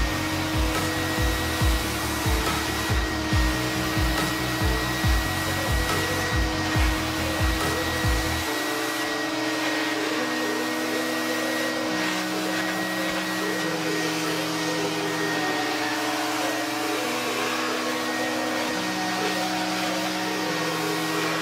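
Carpet extractor running steadily as its wand is drawn slowly over car floor carpet, with a thin steady high whine. Background music plays over it; its regular beat drops out about eight seconds in.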